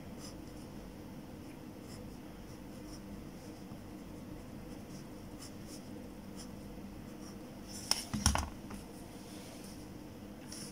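Faint scratching of a pen drawing lines on paper. About eight seconds in, a short cluster of knocks with a low thud as the circuit board is set down on the table.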